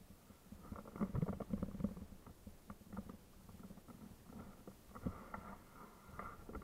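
Komodo dragon walking close by over dry leaves and dirt: irregular crackles and scrapes of its feet and claws, busiest about a second in and again around five seconds.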